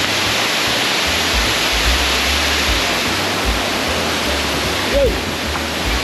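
Waterfall pouring into its pool: a loud, steady, dense rush of falling water.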